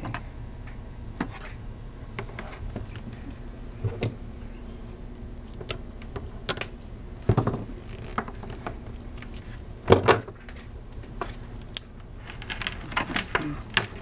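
Scattered clicks and knocks of a modular-plug crimping tool and cable being handled while a shielded Cat6 RJ45 plug is crimped, with two louder clacks past the middle.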